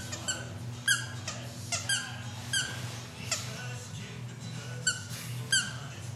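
A dog's squeaky toy squirrel squeaking under the dog's bites: about eight short, sharp squeaks at irregular intervals, over a steady low hum.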